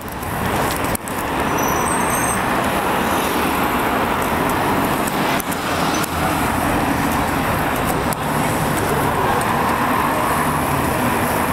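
Steady road traffic noise heard while riding among a large group of cyclists on a city road, with cars driving alongside.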